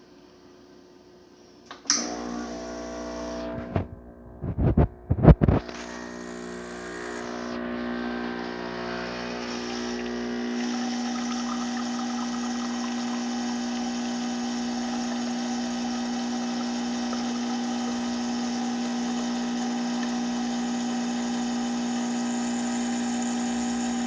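La Spaziale Lucca espresso machine's pump starting about two seconds in and running steadily as a shot of espresso is pulled, with a few loud knocks about four to five seconds in.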